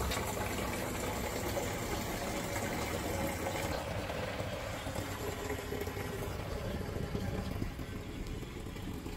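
Water pouring steadily from a pipe into a 20-litre plastic water jar as it fills by gravity feed. The sound grows duller about four seconds in.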